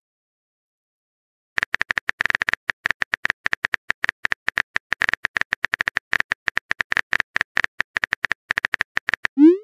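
Phone keyboard typing sound effect: rapid, irregular taps for about eight seconds as a text message is typed, starting after a short silence. A short rising tone, a message-send sound, begins near the end.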